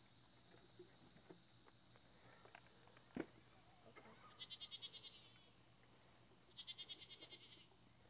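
Faint evening insect chorus with a steady high-pitched buzz, and two short, fast pulsing trills, one about halfway through and one near the end. A single sharp click about three seconds in.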